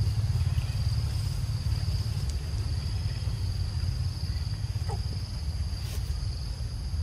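Outdoor ambience: a steady, uneven low rumble under a continuous high-pitched drone, with a few faint ticks.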